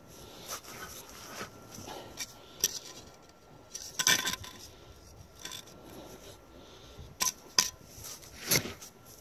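A metal spirit level being picked up and set back down on gritty sand, with a cluster of scraping clicks about four seconds in. Several more sharp clicks and crunches follow near the end as a hand presses into the sand.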